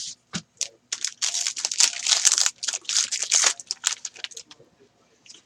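A trading card pack's wrapper torn open and crinkled by hand: a run of sharp crackling starting about a second in and lasting about two and a half seconds.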